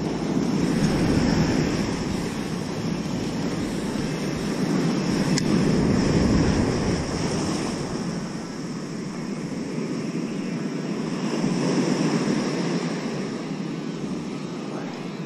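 Ocean surf washing onto the shore, swelling and easing in slow surges about every five seconds.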